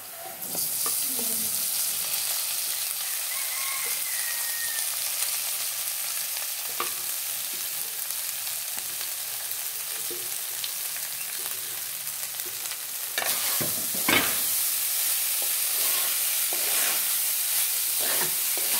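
Oil sizzling steadily in a pan as cooked basmati rice is tipped in on top of the frying vegetables. From about two-thirds of the way in, the sizzle grows louder and a spatula scrapes and stirs the rice through.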